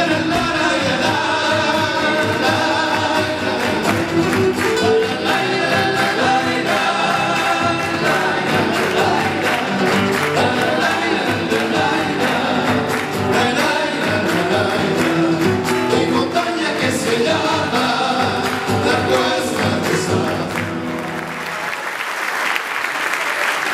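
Folk song, a group singing over instruments. It ends about 22 seconds in and gives way to audience applause.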